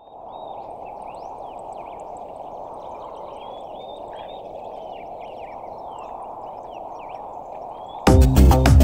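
Several birds chirping and whistling in short rising and falling calls over a steady background wash. Near the end loud electronic music with a beat cuts in suddenly.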